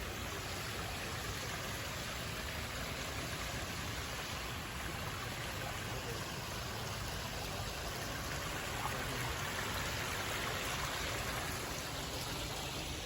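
Steady rushing of a river or stream flowing over rocks.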